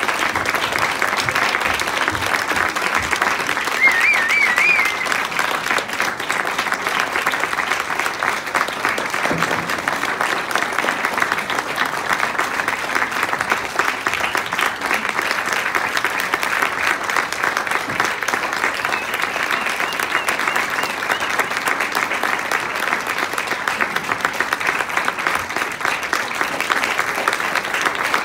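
Audience applauding steadily, many hands clapping. About four seconds in, someone gives a brief, high, wavering whoop.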